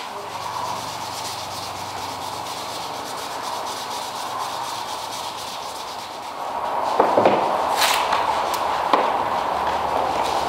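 Brown masking paper being handled and pressed onto a vehicle's bodywork, rustling and crinkling. It starts quiet over a steady low hum and gets louder and busier from about two-thirds of the way in, with a few sharp crackles.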